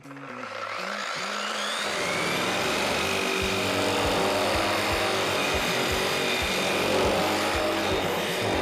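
Angle grinder spinning up with a stainless shrinking disc, its whine rising over the first two seconds, then running steadily as the disc is held flat and rubbed over the sheet-steel hood. The metal-on-metal friction heats the high, stretched spots so they shrink.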